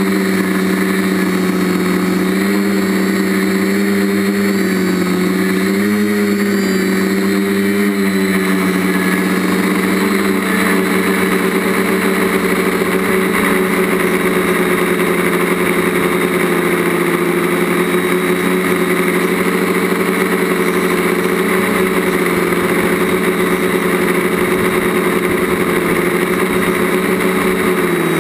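TBS Discovery quadcopter's DJI brushless motors and propellers buzzing in flight, heard up close from the camera mounted on the craft. The pitch wavers with throttle changes for the first several seconds, then holds steadier.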